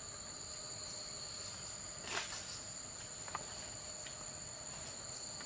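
Steady, high-pitched chorus of forest insects: two unbroken shrill tones, one higher than the other. A brief rustle comes about two seconds in and a small tick a second later.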